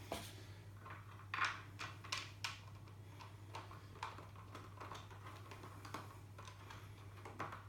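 Scattered light clicks and taps of a metal bolt and wheel parts being handled as a bolt is slid through a balance bike's rear wheel and frame, over a faint steady low hum.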